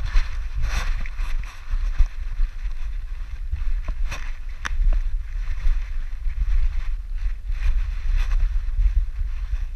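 Wind rumble and rubbing noise on a camera mounted on a playing dog's back: a steady low rumble with repeated bursts of rustling as the dog twists and rolls, and a few sharp clicks, around two and five seconds in.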